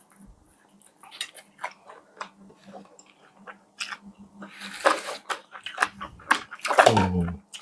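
Close-up eating sounds: people biting into and chewing fried chicken and chips, with scattered crisp crunches and a louder run of crunching about five seconds in. A brief low hum from one of the eaters comes near the end.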